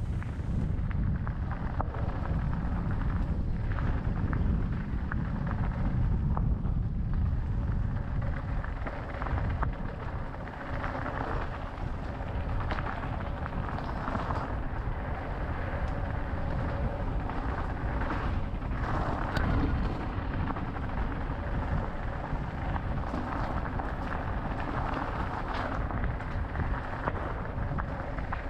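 Riding noise from an electric mountain bike on a dirt forest singletrack, picked up by a helmet-mounted action camera. A steady low wind rumble on the microphone sits under the crunch and hiss of tyres on soil and leaves, with scattered small clicks and rattles from the bike.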